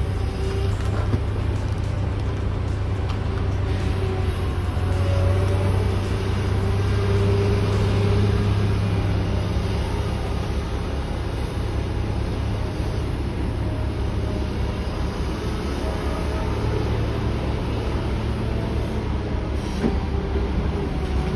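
Diesel engine of a Komatsu wheel loader running steadily, a deep even drone.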